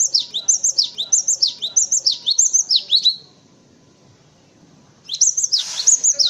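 Cinereous tit (gelatik batu) singing a fast run of repeated high, sharply down-slurred phrases. The song breaks off about three seconds in and starts again about two seconds later.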